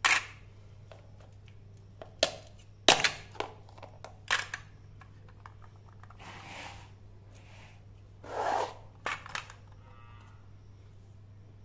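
Plastic toy fruit halves knocking against each other and the bowl as they are put in and shifted: a series of sharp clicks and clacks, with two longer scraping rustles about six and eight and a half seconds in.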